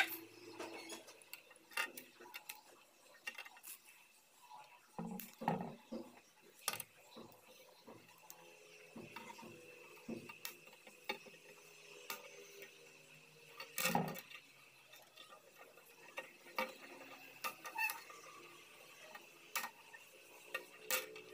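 Plastic parts frames from a robot kit being handled: scattered light clicks and clatters of hard plastic, with one louder knock about two-thirds of the way through.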